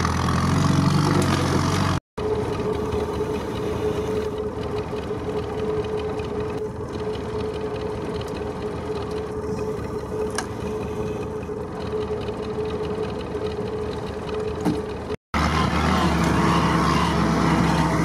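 Willys jeep engine running under way, heard from inside its cab. About two seconds in the sound cuts to a quieter outdoor shot with a steady single-pitched hum, and cuts back to the cab engine sound near the end.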